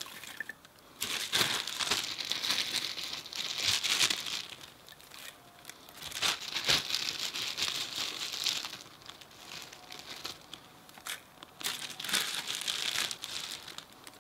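Dry fire-starting material being crumpled and handled by hand, crinkling in three bursts with a few sharp snaps in between.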